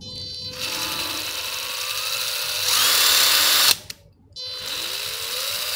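Ryobi 14.4 V cordless drill driver running free with no load, twice. Each time the variable-speed trigger is eased in, so the motor whine climbs slowly, then squeezed to full speed. The first run stops abruptly as the motor brake bites.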